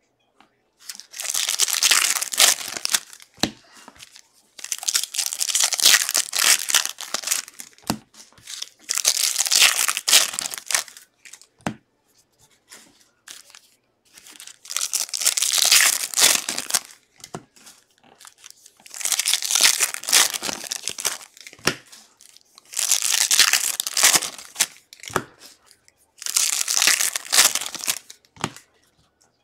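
2023 Bowman baseball card pack wrappers being torn open and crinkled by hand, one pack after another. There are about seven bursts of crinkling, each two to three seconds long, with short pauses between them.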